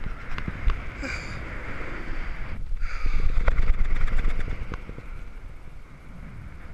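Wind buffeting the microphone of a camera worn by a bungee jumper swinging and bouncing on the cord, loudest about three to four and a half seconds in, then easing. Scattered small clicks and knocks run through it.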